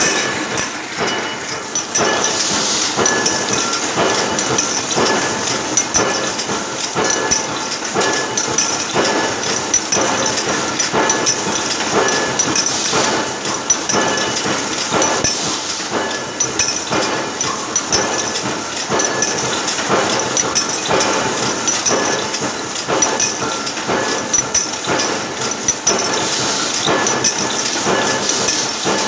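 Automatic aluminium aerosol can trimming machine running: a continuous mechanical hiss with a regular clatter of metal knocks.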